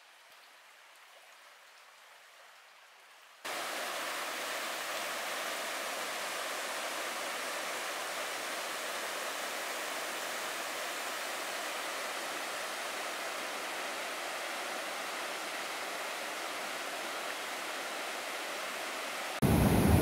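Creek water rushing over rocky rapids: a steady, even rush that starts abruptly about three seconds in after a faint hiss. It jumps louder just before the end.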